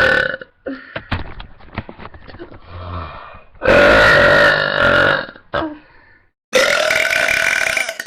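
A young woman burping loudly: the tail of one burp at the start, then two long, drawn-out burps about three seconds apart, each lasting around a second and a half, with faint clicks and rustles between them.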